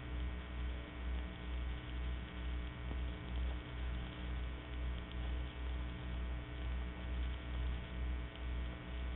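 Steady electrical hum and hiss, the noise floor of an old recording, with a low throb pulsing about twice a second underneath.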